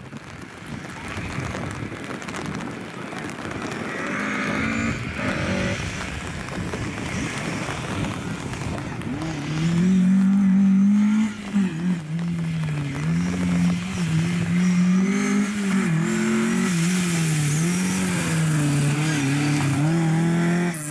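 Lada 2107 rally car's four-cylinder engine driven hard, growing louder until it is loudest about ten seconds in as the car passes close. The revs then keep rising and falling as the throttle is worked through the corners.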